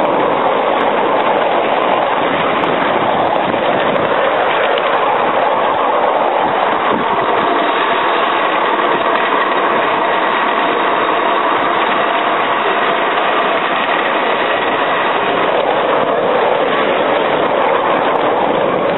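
7¼-inch gauge miniature train running on its track, a steady, even rumble and rush with no clear wheel-beat.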